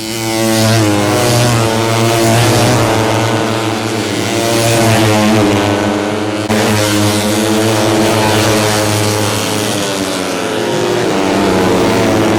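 Racing 150cc four-stroke underbone motorcycle engines at high revs, their pitch rising and falling with throttle and gear changes. The sound changes abruptly about six and a half seconds in.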